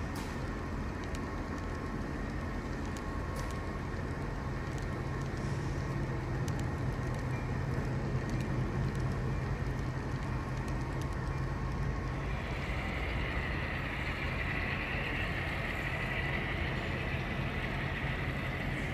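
HO scale model freight train running on the layout track: a steady low hum and rumble of the train rolling. About two-thirds of the way through, a higher hiss or squeal joins in and holds.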